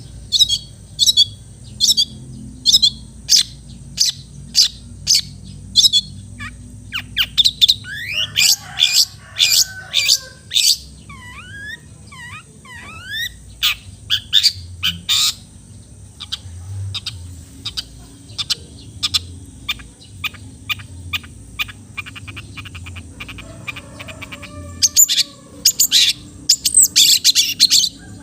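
Long-tailed shrike (cendet) singing: sharp high notes repeated about twice a second. About a third of the way in comes a burst of quick sliding chirps, and near the end a fast, dense chattering run.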